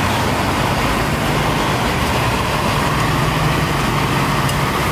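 Steady street traffic noise: a continuous low engine hum under an even hiss.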